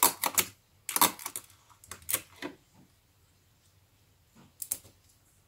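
Paper strips being handled and pressed down onto card: short crisp rustling, clicking bursts, four of them with quiet gaps between.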